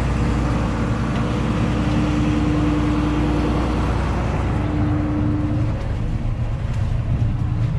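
A combine harvester's engine running steadily, a continuous low rumble. Over it sits a steady higher hum that drops out for about a second around four seconds in.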